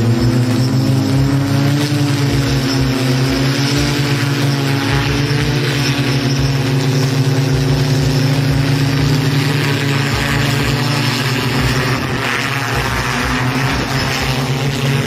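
Hoversurf Scorpion hoverbike's four electric propellers running as it lifts off and hovers: a loud, steady droning buzz whose pitch drifts slightly.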